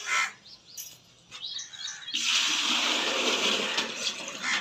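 Water pouring steadily from a pot into a metal bucket. It starts about two seconds in and runs for about two and a half seconds.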